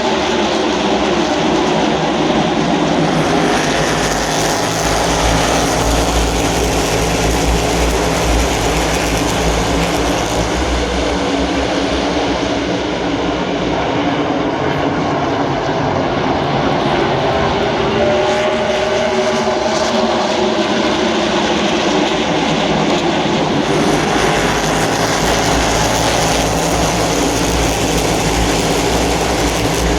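NASCAR stock cars' V8 engines running at race speed, a dense, unbroken wall of engine noise from the field circling the track, with one engine's pitch briefly rising and falling near the middle.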